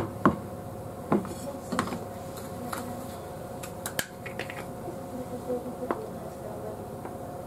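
Scattered light clicks, taps and crinkles of kitchen handling: a ceramic plate covered in cling film set onto a plastic cutting board, and a squeeze tube of butter being picked up and opened. A faint steady hum runs underneath.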